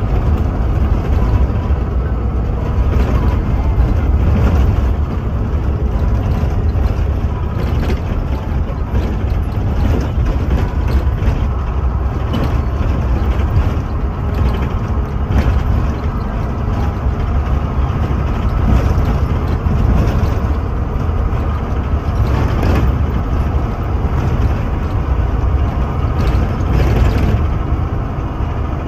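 Bus engine running and tyre and road rumble heard from inside the cab beside the driver, steady and loud, with occasional knocks and rattles from the bus body on the rough road.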